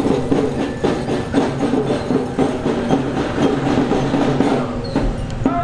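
Marching drum band playing: drums beat a steady march at about two strokes a second, with a sustained tune over them.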